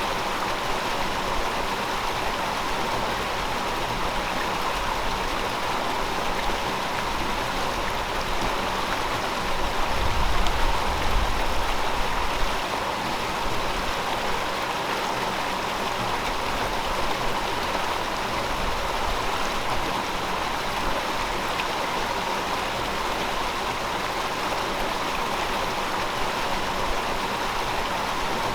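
River water flowing steadily, an even rushing hiss. About ten seconds in, a low rumble swells for a couple of seconds and fades.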